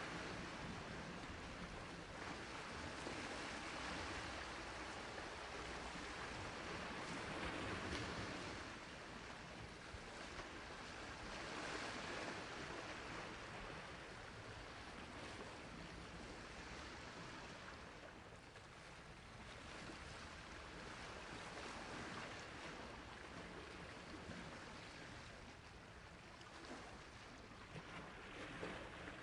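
Sea waves washing onto the shore: a continuous rush of surf that slowly swells and eases every few seconds.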